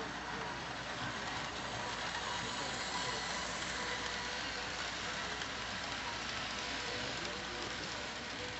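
HO scale TYCO model train running along its layout track: a steady rolling rattle of the wheels on the rails, with a faint motor whine.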